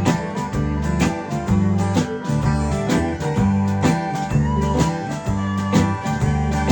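Instrumental break of a country-blues song: acoustic guitar picking and strumming over a walking bass line.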